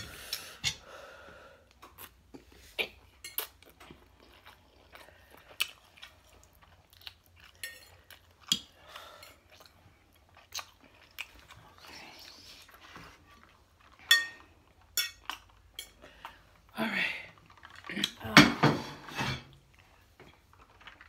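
Close-up eating sounds: chewing noodles and forks clinking and scraping on ceramic plates, heard as scattered sharp clicks, with a louder stretch of noise near the end.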